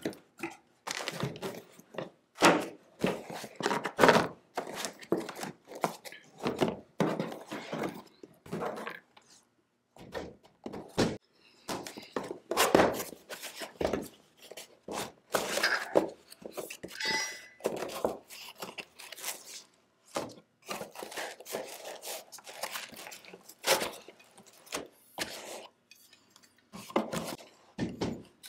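Cardboard boxes and packaging being unpacked by hand: irregular thuds, knocks and scrapes as boxes are lifted out and set down on the counter, with rustling of the paper and plastic wrap.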